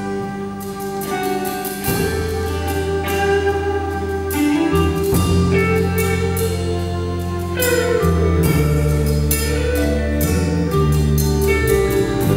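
Live worship band playing: electric guitars and bass with a drum kit, sustained bass notes changing every second or two under held chords, and regular drum and cymbal hits.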